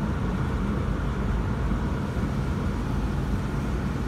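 Renault Megane's 1.6-litre K7M703 petrol injection engine idling steadily, heard inside the cabin.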